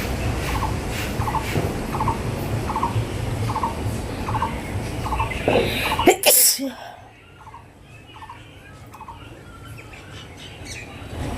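A single sneeze about six seconds in, the loudest thing here. Before it, a low wind rumble on the microphone; throughout, a short chirp that repeats a little more than once a second.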